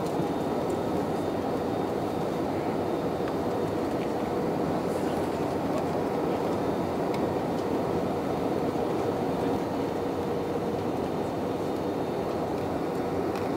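Airliner cabin noise in flight: the steady rush of the jet engines and the air streaming past the fuselage, heard from a window seat, with a faint steady hum underneath.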